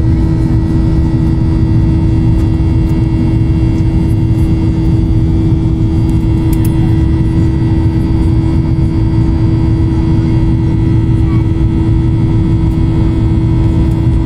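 Steady engine and airflow noise heard inside an airliner cabin in flight: a low rumble with one constant droning tone.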